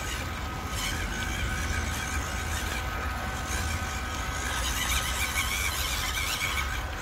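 Small 180-size brushed electric motor and plastic gearbox of a WPL C24-1 1/16-scale RC crawler whining steadily as the truck crawls over mud and leaves, over a low rumble.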